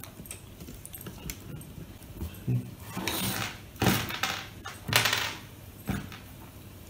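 Handling noise of electrical wires being cut and stripped: small clicks, then a few short scraping rustles about three, four and five seconds in.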